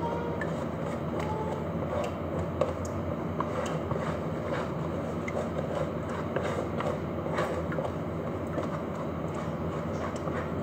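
Steady mechanical hum in a kitchen, with a few faint light clicks and taps.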